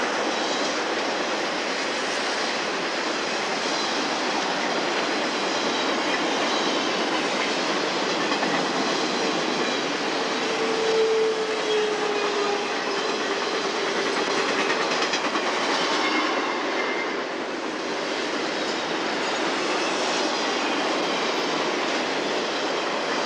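Piggyback freight train of highway trailers on flatcars rolling past, a steady rumble and rattle of wheels on rail, with a wheel squeal about ten seconds in.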